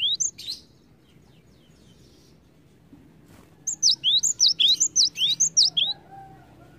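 Cinereous tit (gelatik batu) singing its loud, high, whistled song of quickly repeated two-note phrases, about four a second. A short burst comes at the start, then a pause of about three seconds, then a longer run of a dozen or so phrases.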